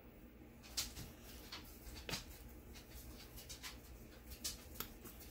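Light handling noises of paper and stickers being worked on a planner page: scattered soft clicks and ticks, the sharpest less than a second in and another about two seconds in, over a faint steady room hum.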